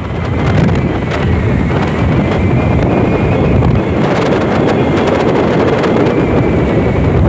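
Strong wind buffeting the microphone, a dense low rumble throughout, over the sound of a slow passenger train of coaches rolling across a long rail bridge over the sea.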